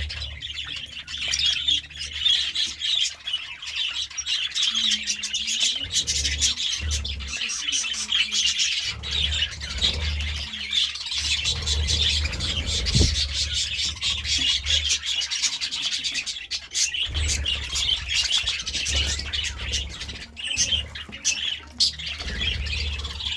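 Budgerigars chirping and chattering continuously, a dense warbling with occasional squawks, over a low background hum.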